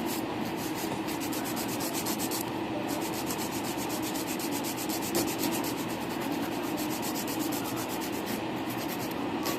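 Acrylic nails being filed during a fill: a steady, fast scraping.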